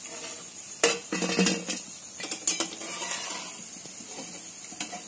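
Hot oil sizzling steadily in a steel kadhai, with metal-on-metal clinks and scrapes as a slotted steel spoon lifts deep-fried fritters out of the pan onto a steel plate. The sharpest clink comes about a second in, followed by a quick cluster of clinks and a few more later.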